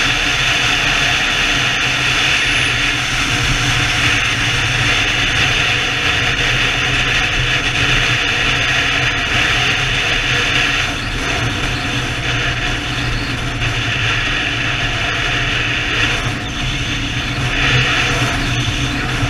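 Steady engine drone and wind rush of a BMW touring motorcycle cruising at road speed, heard from the rider's position; the noise eases slightly a little after eleven seconds in.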